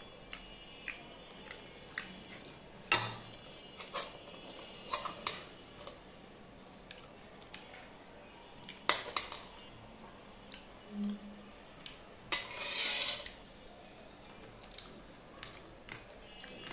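Metal spoon clinking and scraping against plates and dishes as food is served at the table, in scattered short clinks. Two sharp clinks about three and nine seconds in are the loudest, and there is a brief scraping rush about twelve seconds in.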